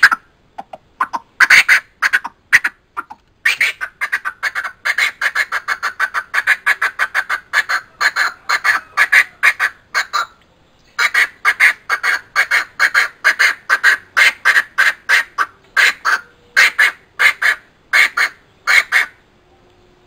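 Coucal calling: a few single notes, then two long runs of rapid, harsh clucking notes, about four a second, with a short break in the middle, stopping shortly before the end.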